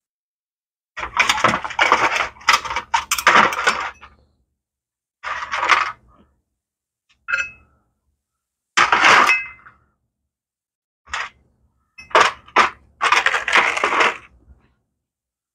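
Metal parts and hand tools clinking and rattling in several bursts of handling, the longest about a second in, while a horn is fitted to a motorcycle.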